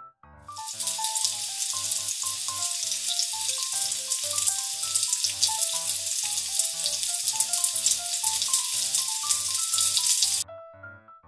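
Paratha sizzling in oil on a hot iron tawa while it is pressed down with a cloth: a loud, even crackling hiss that starts about half a second in and cuts off abruptly near the end.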